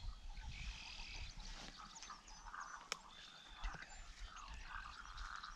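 Outdoor ambience of many small wildlife calls, short chirps and croaks overlapping throughout, over a low rumble, with a single sharp click about three seconds in.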